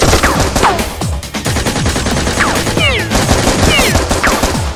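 Rapid automatic-gunfire sound effect, shot after shot, dubbed over background action music, with a few falling whistles.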